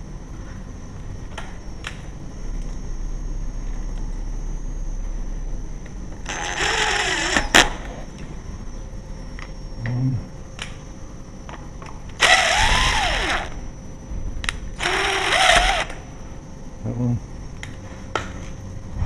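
Cordless drill-driver running in three short bursts of about a second each, its motor whine rising and falling as it drives screws. Scattered clicks and a couple of low knocks sound between the bursts.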